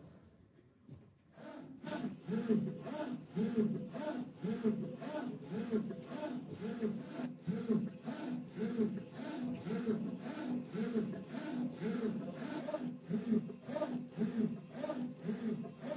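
UV flatbed printer's print-head carriage shuttling back and forth over the plastic piece while printing, its drive whirring with each pass in a regular rhythm, starting about a second and a half in. A steady hum runs underneath.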